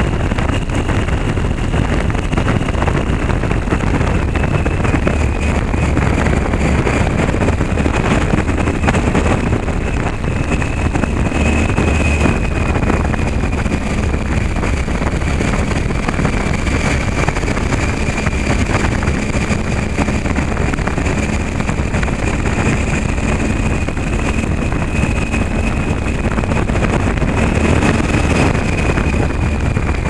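Motorcycle engine running steadily under way, mixed with wind noise on the microphone and the rumble of tyres on a cobblestone road.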